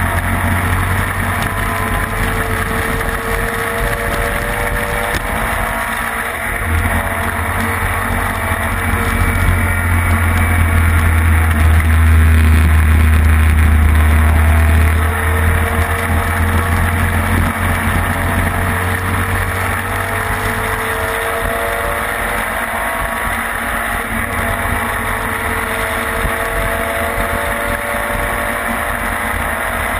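Racing sidecar outfit's engine running hard, heard on board, its pitch climbing and dropping again through the gears. A heavy low rumble of wind on the microphone swells toward the middle and drops off sharply about halfway through.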